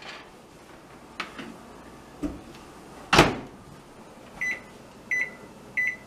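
Microwave oven door shut with a loud thump about three seconds in, after a few light knocks, then three short keypad beeps as the cook time is entered.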